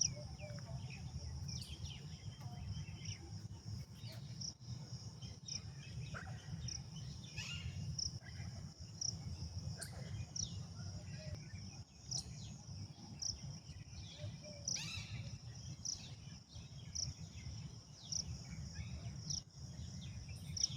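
Several birds chirping with varied short calls. One short, high note repeats about once a second over a steady low rumble.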